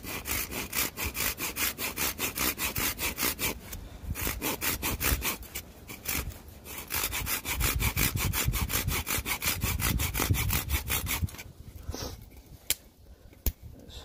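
Folding pruning saw cutting through a dead wooden branch in quick, even back-and-forth strokes, several a second, with two short pauses. The sawing stops near the end, followed by a few light clicks.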